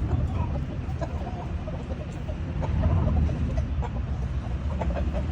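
Fighting cocks clucking in short scattered notes over a steady low rumble.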